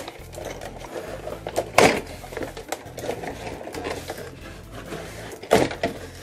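Plastic toy playset being worked out of its cardboard box: scraping, rustling and rattling of plastic against cardboard, with a sharp knock about two seconds in and another near the end.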